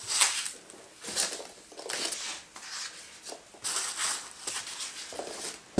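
Polystyrene packing peanuts and plastic wrapping handled by hand: repeated bursts of rustling and crinkling, the sharpest just after the start.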